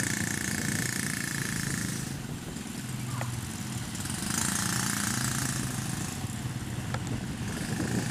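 ATV engine running steadily, with a higher whine that comes in and drops out a few times.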